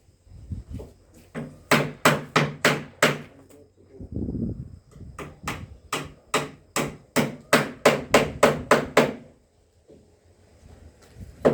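Hammer blows on wood in two quick runs, about three or four strikes a second, the second run longer, with one more knock near the end.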